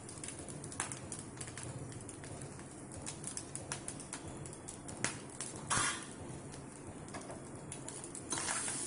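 Metal spoon clicking and scraping against a pan of cooked rice as salt is sprinkled in, with one louder clack about six seconds in. Near the end a steady sizzle rises as the rice heats in the coconut-oil tempering.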